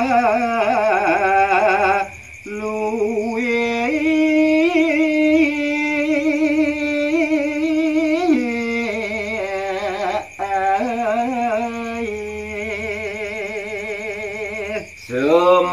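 A man singing a verse of Balinese gaguritan (tembang macapat) unaccompanied, holding long notes decorated with wavering melismatic turns. He breaks off briefly for breath about two seconds in and again near the end.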